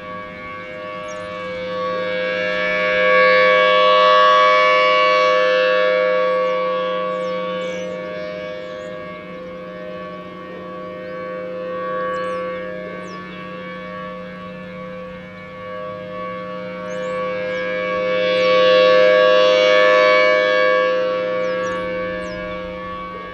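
Federal Signal Thunderbolt 1000T outdoor warning siren sounding a steady tone during a test. Its pitch holds level while the loudness swells and fades as the rotating head sweeps past, loudest about four seconds in and again near nineteen seconds.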